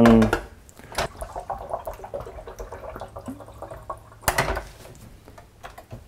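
Clicks from the lid and handle of a Keurig K10 single-cup brewer being worked: a sharp click about a second in and a louder one a little past four seconds, with faint small ticks between.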